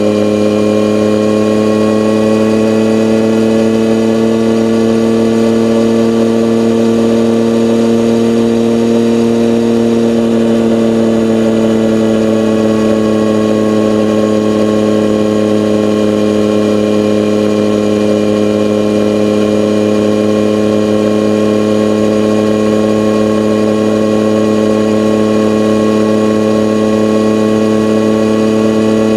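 Vehicle engine running at a steady high speed, one unbroken engine note that drops slightly about ten seconds in and then holds.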